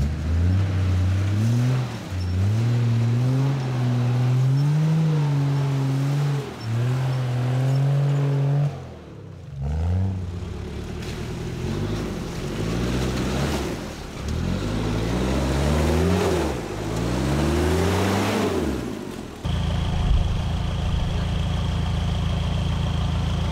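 Off-road 4x4 truck engine revving up and easing off as it pulls through mud, with several quick rises and falls in pitch in the second half. It settles into a steady idle for the last few seconds.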